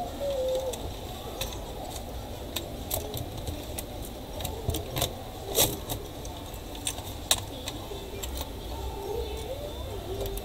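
Irregular light clicks and rattles of plastic and metal laptop parts being handled inside an opened laptop chassis, the sharpest about five and a half seconds in, over a low background rumble.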